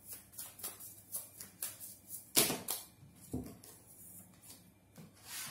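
Tarot cards being shuffled by hand: a quick run of card clicks, several a second, with a louder snap about two and a half seconds in.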